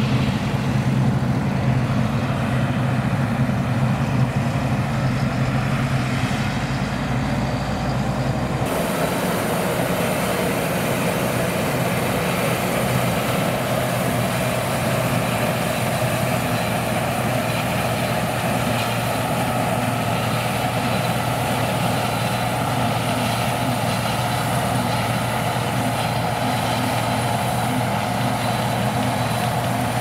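Deutz-Fahr 5690 HTS combine harvester running steadily while harvesting barley: a constant engine hum under the rushing hiss of the threshing and straw spreading. About nine seconds in the sound changes abruptly, the low hum dropping back and the hiss growing brighter.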